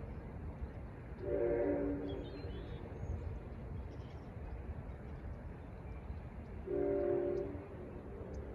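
Amtrak San Joaquins train 702's horn, sounded from its leading NPCU cab car 90278, blowing two short chord blasts in the distance about five seconds apart as the train moves away.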